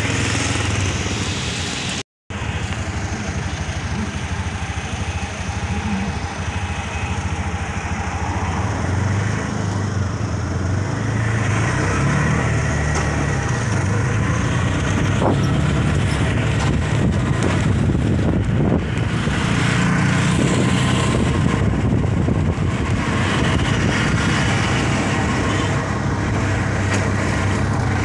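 Steady engine hum and road noise from riding on a vehicle through street traffic, with other motorcycles and vehicles passing. The sound cuts out for a moment about two seconds in.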